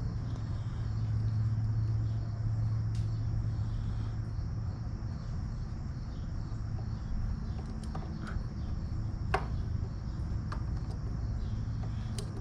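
Steady low hum with a high, continuous cricket drone behind it, and a few sharp clicks and taps of small parts being handled as a fuel line and filter are fitted to a mower.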